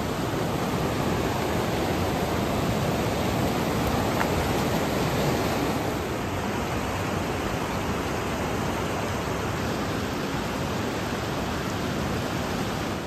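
Steady rush of the Seti River's flowing water.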